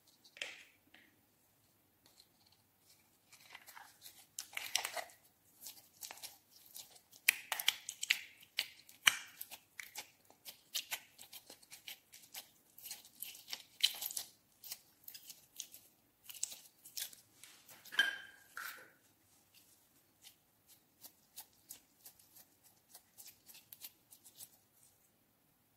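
Clear glitter slime being squeezed and stretched by hand, making sticky crackling and small popping sounds. The crackles are busiest in the middle and thin out over the last several seconds.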